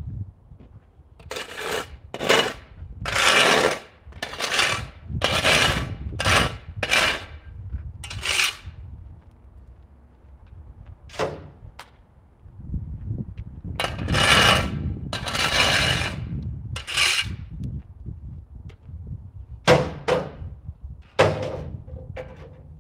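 A metal hand tool scraping the heated top layer of asphalt off a speed bump, in runs of repeated scratchy strokes with short pauses between the runs, over a low steady rumble.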